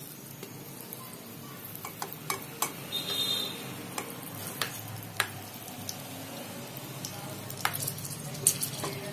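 Hot oil sizzling in a nonstick frying pan as stuffed green chillies are laid into it, with sharp spattering pops every second or so, the loudest about eight and a half seconds in.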